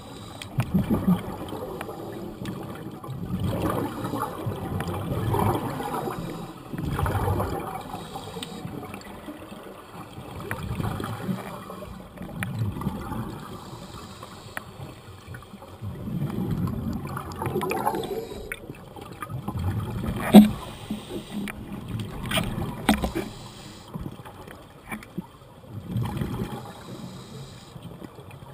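Scuba divers breathing underwater through their regulators: exhaled bubbles gurgle and rumble in swells every few seconds. One sharp knock about two-thirds of the way through.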